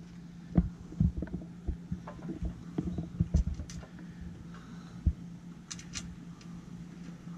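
Light knocks and a few sharp clicks as a metal bracket and screws are handled against an aluminum step platform, over a steady low hum.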